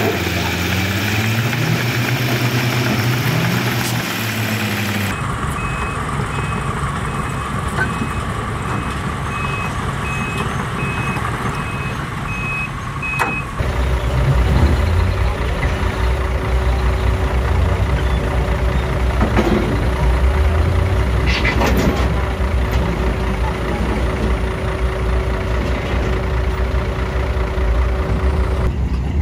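Heavy diesel truck engines running. For the first few seconds one revs up repeatedly. In the middle a reversing alarm beeps steadily at one even pitch. Then an engine idles close by with a steady whine over the low drone.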